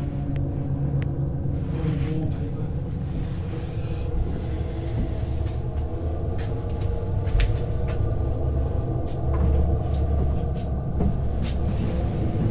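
A steady low rumble, with scattered clicks and knocks as a wooden interior door is handled and opened.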